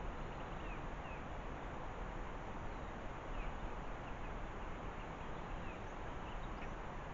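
Faint, short chirps of small birds scattered through, over a steady hiss.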